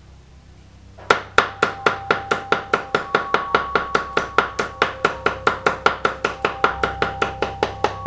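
A heavy cleaver chopping garlic cloves on a thick wooden chopping block: sharp, even knocks, about four a second, starting about a second in.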